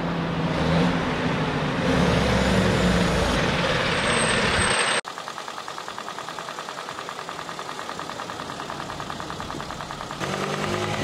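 Fire engine driving along a city street: engine and road noise. It cuts off suddenly about five seconds in, giving way to a quieter engine idling with a fast, even ticking.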